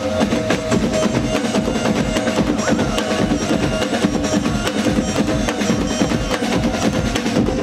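A drum ensemble playing a fast, dense rhythm on many toms, with a steady held note underneath.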